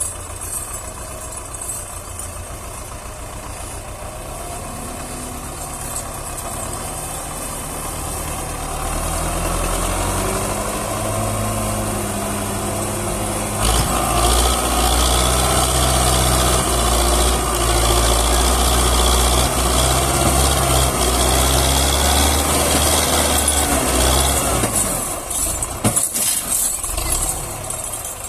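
Tractor diesel engine working hard under load, hauling a sand-laden trolley through soft ground. The engine grows louder over the first ten seconds, gets louder again about halfway through, and eases off near the end.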